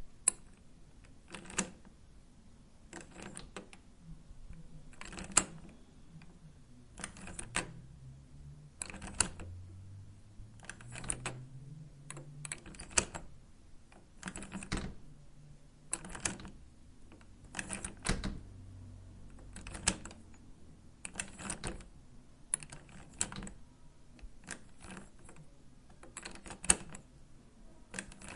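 Push handle and lock latch on a metal door, worked over and over: a sharp metallic clack or double clack every second and a half to two seconds, over a faint low hum.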